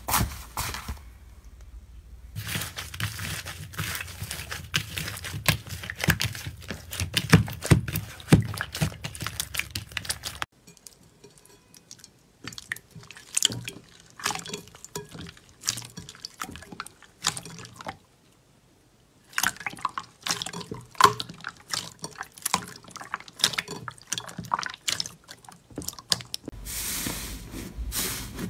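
Slime being squeezed, pressed and poked by hand: dense runs of sticky, wet clicks and crackles, in several separate clips with abrupt changes between them and a brief silence about two thirds of the way through.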